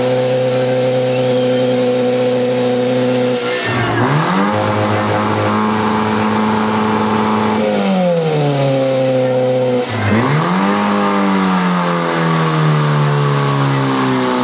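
Portable fire pump engine running hard at high revs. About four seconds in its pitch drops sharply and climbs back. It sags again, dips sharply about ten seconds in, recovers, then wavers and slowly falls.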